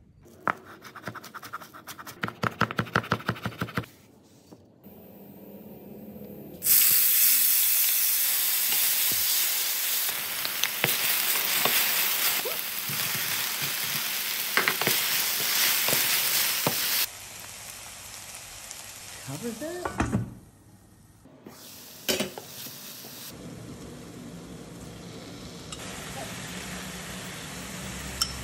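Cubed eggplant frying in hot oil with onion in a stainless steel pan. The sizzle starts loud about seven seconds in, drops to a quieter sizzle about ten seconds later, and is stirred with a wooden spoon. It opens with a run of quick knocks.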